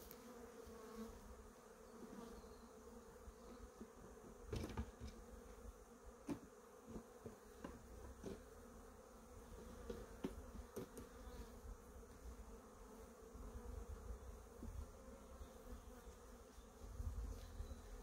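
Honeybees from an open hive buzzing, a faint, steady low hum, with a few sharp knocks and clicks from wooden hive frames being handled.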